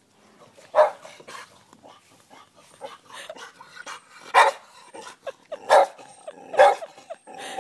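Dog barking in short single barks, one loud bark about a second in, a few softer ones, then several loud barks about a second apart in the last three seconds.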